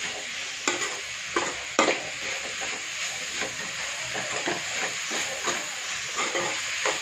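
Shredded vegetables sizzling as they are sautéed in a metal pan on a high flame, with a metal spatula scraping and knocking against the pan several times as it stirs.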